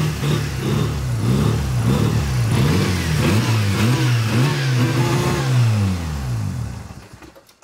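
Mazda 13B rotary engine revving up and down about once a second as the throttle is worked by hand to keep it running while it ingests water through an intake vacuum line for a water carbon-clean. Near the end the revs fall away and the engine shuts off.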